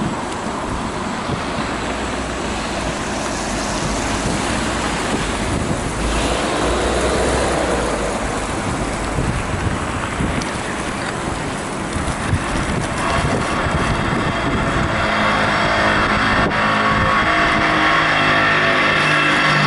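Wind rushing over the microphone and road traffic noise during an electric unicycle ride. From about two-thirds of the way in, a steady pitched motor hum from a vehicle joins in and grows slightly louder.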